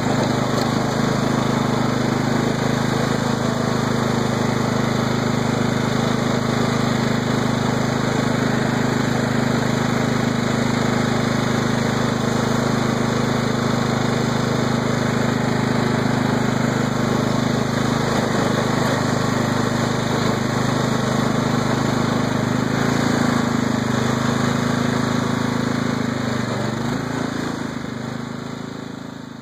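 Craftsman LT1000 lawn tractor's Kohler 16 hp OHV engine running steadily, its pitch dipping slightly near the end as the sound fades out.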